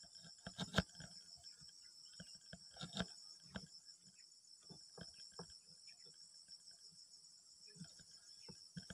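Steady high-pitched chirring of an insect chorus, with irregular faint taps and knocks; the sharpest knocks come just under a second in and about three seconds in.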